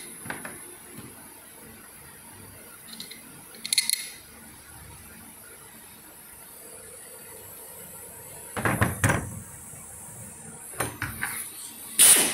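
Small steel puller parts clinking and clattering as they are handled, fitted together and set down on the workbench: a few short bursts of metal knocks, the loudest near the end.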